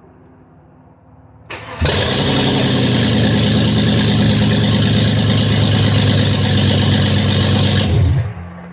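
Chevy Blazer ZR2's 4.3 L V6 starting on another attempt after its ignition timing was reset to the correct damper mark. It catches about a second and a half in and runs loud and steady for about six seconds, then drops sharply to a much quieter running sound near the end.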